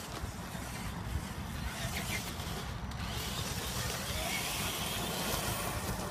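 Wind rumbling on the microphone while a Traxxas TRX-4 RC truck drives over a gravel path. From about three seconds in, a hiss of its tyres on loose stones grows louder, with a faint rising motor whine around four seconds in.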